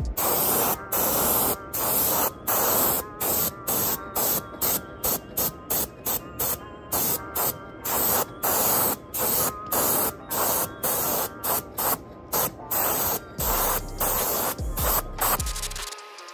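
Airbrush spraying paint in short repeated bursts of hiss, roughly two a second, as the trigger is pulsed on and off; the spraying stops shortly before the end.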